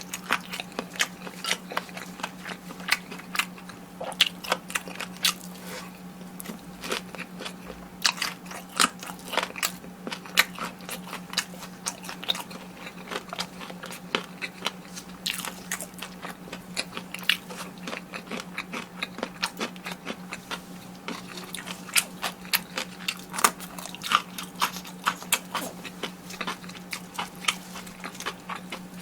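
Close-miked crunching and chewing of crispy fried food: many sharp, irregular crunches from bites and chews, over a steady low hum.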